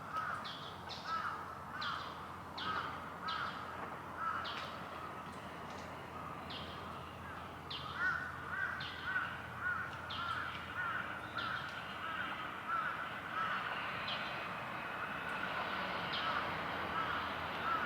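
Crows cawing over and over in quick series, a call roughly every half second to second, over a faint steady background hum.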